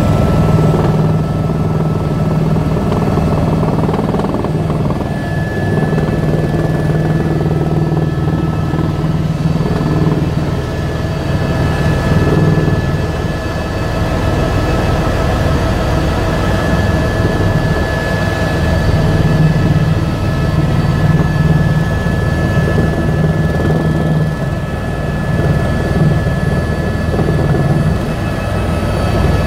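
Helicopter in flight, heard from inside the cabin: steady engine and rotor noise with a thin, high steady whine over it.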